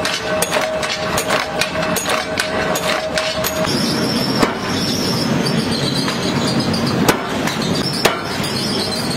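Forging-shop noise: for the first few seconds, rapid irregular metallic clinks over a machine's steady hum; then the steady rush of a forge fire and blower, broken near the end by two heavy blows about a second apart as a drop hammer forges a red-hot steel scissor blank.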